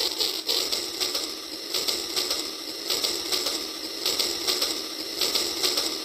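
Battery-powered toy train running along plastic track, its small electric motor and plastic gears giving a rattling whirr.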